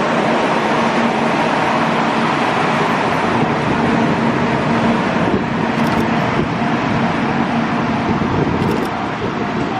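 Shinkansen 700-series train rolling slowly over a level crossing: a steady rumble with a low hum, easing off a little near the end.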